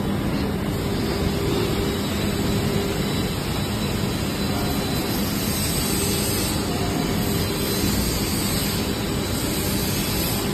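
Injection moulding machine running through a moulding cycle on a pipe-fitting mould: a steady mechanical drone with a low hum and no pauses.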